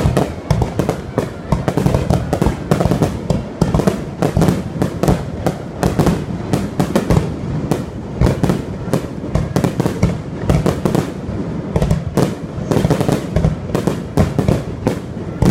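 Fireworks display: a rapid, continuous barrage of bangs and crackles from bursting aerial shells and rising comets, several reports a second.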